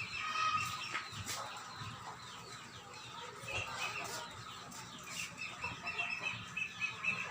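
Short, high animal calls repeated over and over, with a quick run of them near the end.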